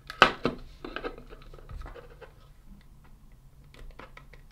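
Two sharp clicks, then lighter scratching and tapping, as telephone wires are pushed into the tool-less terminals of an Openreach NTE5C master socket.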